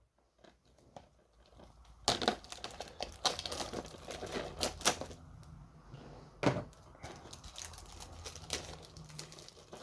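Plastic shrink wrap being picked at and ripped off a DVD box set: crinkling and crackling with sharp clicks and snaps, starting about two seconds in.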